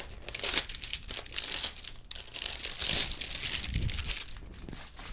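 Plastic wrapping crinkling and rustling as it is handled and pulled off a metal-cased switching power supply.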